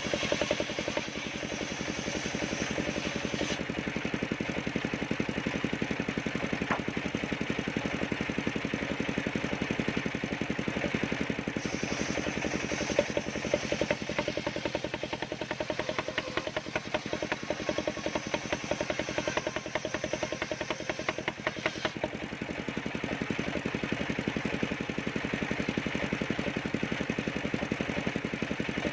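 Engine of a portable circular sawmill running steadily, with a fast, even pulse.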